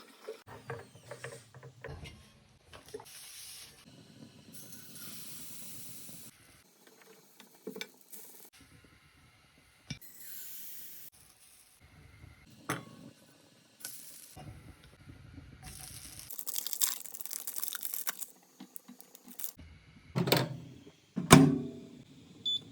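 A string of short kitchen sounds from making and cooking pancakes, cut one after another. There are stretches of steady hiss-like noise, such as pouring, whisking or sizzling, between sharp clicks and clinks of utensils, with a cluster of louder knocks near the end.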